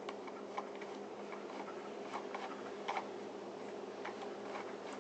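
Mechanism of an Arriflex 16S 16mm film camera being advanced by hand, giving faint, irregular ticks and clicks from its movement, over a steady low hum.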